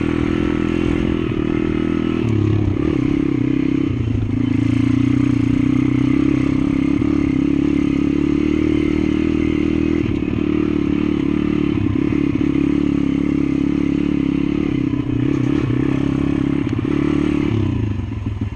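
Welsh Pit Bike's small single-cylinder engine running steadily as the bike is ridden along a rough dirt trail, with clattering from the bike over the bumpy ground. The engine note shifts a little about two and four seconds in and eases off near the end.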